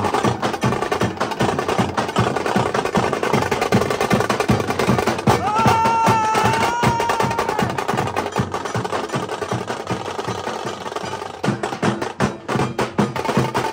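Nashik dhol drums beaten fast with sticks in a loud, driving ensemble rhythm of rapid strokes. A held high note sounds over the drumming for about two seconds near the middle.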